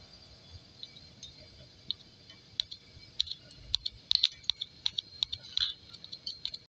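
Ghee melting in a hot nonstick frying pan, crackling with irregular small pops that come more often in the second half.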